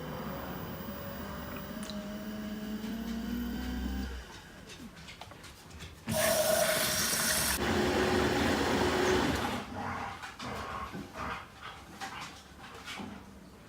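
Dishwasher running a cycle: a motor hum with a slowly rising whine that winds down about four seconds in, then a loud rush of water for about three seconds, followed by scattered clicks and knocks.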